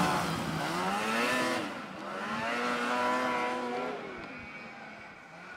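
Snowmobile engine revving hard, its pitch rising and falling several times as the sled is ridden through deep snow, then fading near the end.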